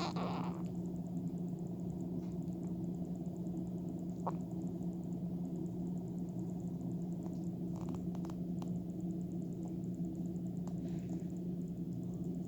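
Baby hiccuping: a few short, soft hics several seconds apart, with a brief louder sound right at the start, over a steady low hum.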